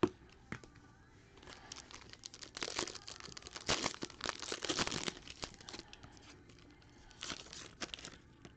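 Foil trading-card pack wrapper being torn open and crinkled by hand. The crinkling starts about a second and a half in and is loudest for a few seconds, then comes back briefly near the end as the cards are pulled out.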